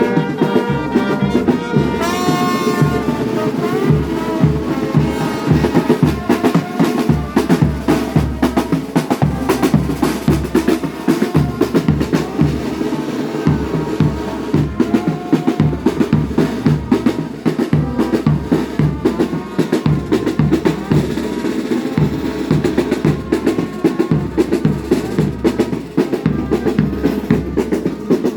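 Brass band playing, driven by steady snare and bass drum beats, with the brass horns heard most clearly in the first few seconds.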